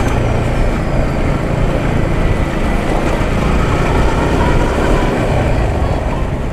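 Yamaha R15M's 155 cc single-cylinder engine running steadily at low road speed, with wind rumble on the microphone.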